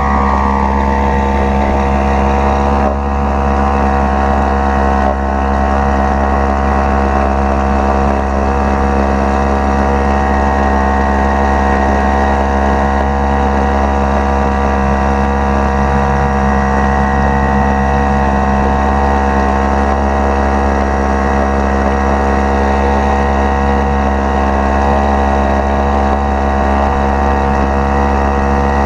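Hidea 3 hp single-cylinder outboard motor running steadily under way at a constant speed, its engine note holding one even pitch throughout.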